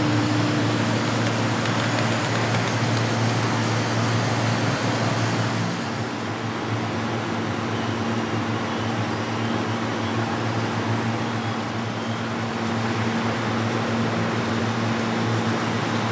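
Steady mechanical hum and hiss of a model railway layout with trains running, with a low drone under it; the level dips a little about six seconds in.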